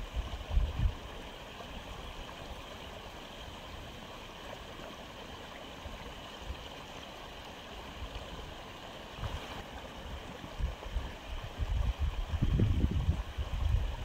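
Steady trickling and gurgling of water circulating in a freshwater aquarium, with low rumbles about half a second in and again near the end.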